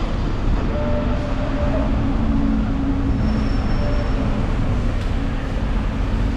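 Street traffic noise with the steady hum of a passing vehicle's engine, and wind rumbling on the microphone.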